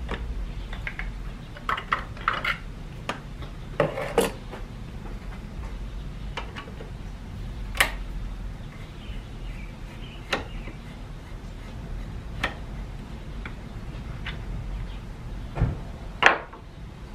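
Scattered clicks and clinks of a screwdriver and pliers working at an Audi A4's plastic coolant expansion tank and its fittings, with a couple of sharper knocks near the end.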